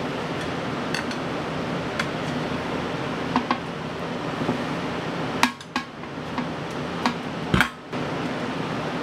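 Metal tire tools clinking against an ATV wheel rim as the tire bead is pried off: a handful of light, separate clinks over steady background noise.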